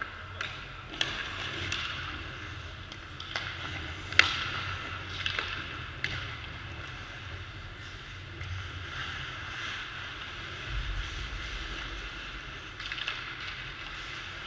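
Ice hockey skates scraping and carving on the ice, broken by a string of sharp cracks of sticks hitting pucks and pucks striking the boards. The loudest crack comes about four seconds in.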